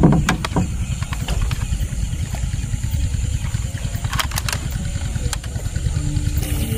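Small boat engine running steadily with a low rumble, with a few sharp clicks and knocks near the start and about four seconds in.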